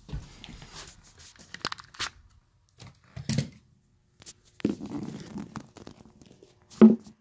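Handling noise from the phone being picked up and moved about close to the floor: rustling and scraping against its microphone with scattered knocks, the loudest a sharp knock near the end.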